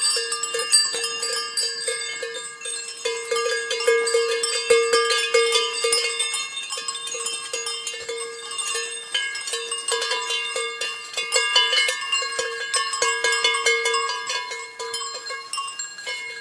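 Bells jangling and ringing with many quick strikes over a steady held tone, a bright bell-filled soundtrack.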